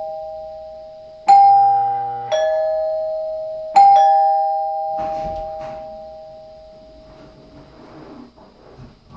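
Newly installed Dimango/Thomas & Betts two-note door chime being rung: a ding-dong about a second in, then a single ding a second and a half later. Each note rings on and slowly fades, with a low hum under the first ding-dong. Faint knocks and rustling follow as the ringing dies away.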